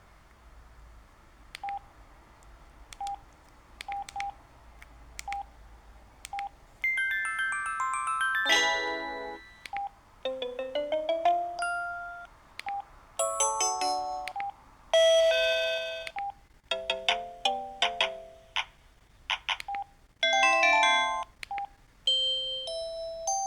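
Samsung SGH-E330N mobile phone playing its built-in tones: first a few short single beeps with clicks, then a run of short electronic melodies, one after another, each lasting a second or two before the next starts.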